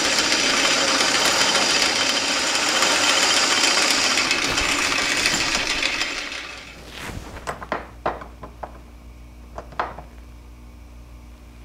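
Metal lathe turning a steel bar, a steady cutting noise from the tool taking metal off, until the lathe is shut off about six seconds in and winds down. A few light clinks follow.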